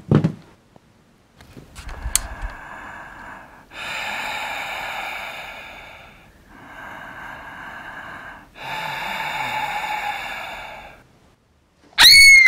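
A girl breathing heavily in long, drawn breaths, four in all, each two to three seconds. Near the end comes a short, loud, shrill scream that rises and then falls in pitch.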